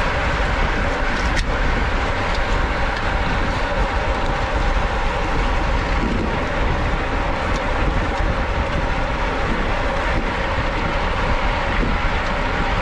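Steady wind rush on the microphone with tyre and road noise from road bicycles riding at race speed, and one faint click about a second and a half in.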